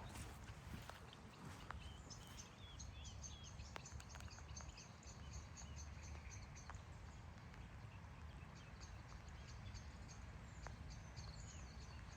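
Faint birdsong: a small bird gives runs of rapid, high, repeated chirps, one run starting a couple of seconds in and another near the end, over a low rumble of wind.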